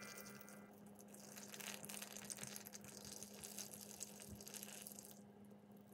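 A thin stream of water pouring into a glass bowl of biga dough, a faint splashing trickle that stops shortly before the end.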